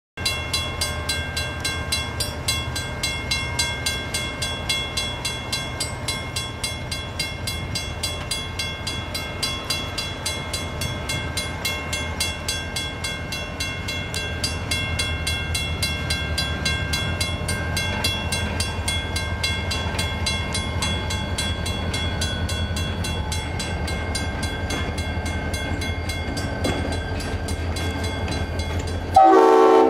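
A grade-crossing warning bell ringing rapidly and steadily, about two to three strokes a second, while the low rumble of an approaching EMD GP40 diesel locomotive grows louder from about halfway through. Just before the end, the locomotive's Leslie S5T five-chime horn starts to blow for the crossing.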